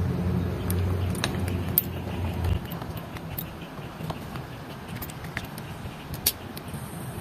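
Scattered light clicks and taps of plastic and metal parts as a Yamaha NMAX scooter's throttle grip tube is handled and fitted on the handlebar for its throttle cable. A low steady hum underneath cuts off suddenly about two and a half seconds in.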